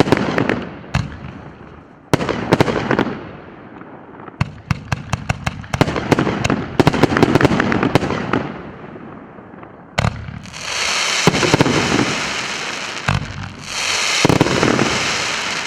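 Firework cake (114-shot battery of 1.2- and 1.75-inch tubes) firing: sharp launch and burst reports, in a rapid run of shots in the middle. Near the end come two long stretches of dense crackling hiss from the shells' effects.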